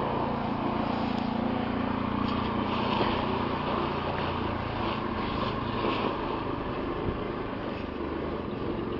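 A steady engine drone with a low hum, its hum easing a little after about three seconds.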